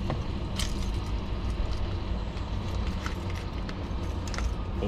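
Steady low rumble of a car running, heard from inside the cabin, with a few light clicks and rustles from a wallet and card being handled.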